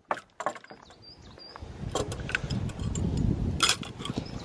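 Metal gate latch and chain being handled on a wooden field gate: scattered clicks and metallic rattling, growing busier after about a second and a half, with one sharp clack near the end.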